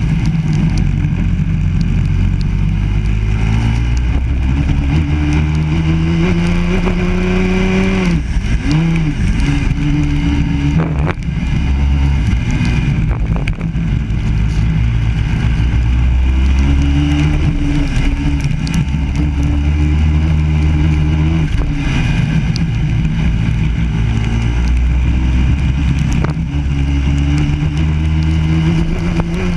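A Biland SA250 kart's four-stroke engine heard from on board, racing on a wet track. Its pitch climbs steadily under throttle, then drops sharply as the driver lifts for corners, about eight seconds in and several more times after.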